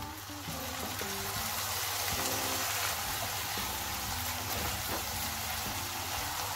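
Water poured into a hot frying pan of diced sausage and vegetables, bursting into a loud steady sizzle and hiss about half a second in that keeps going as the mix is stirred.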